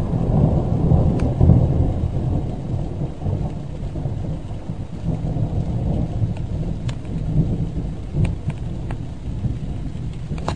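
Rolling thunder rumbling deep and long, loudest about a second or two in and slowly easing off, over steady rain with scattered sharp drop ticks.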